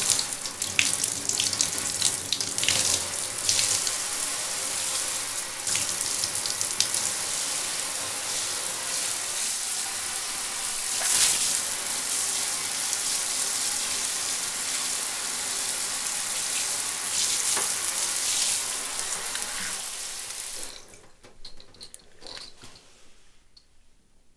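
Shower running: a steady, dense spray of water that cuts off abruptly near the end, leaving only a few faint small noises.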